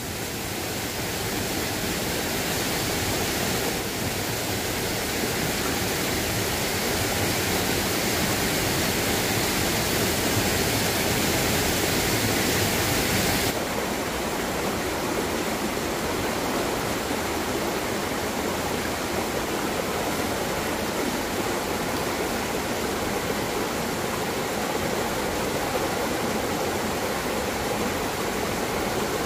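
Steady rushing of water, an even hiss with no distinct drops or splashes. About thirteen seconds in the higher hiss drops away suddenly, leaving a duller rush.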